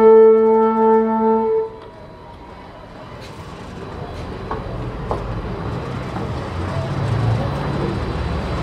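A woodwind ensemble of flute, clarinet and saxophones holding a sustained chord that cuts off about a second and a half in. After it comes low audience chatter that slowly grows louder, with a few faint clicks.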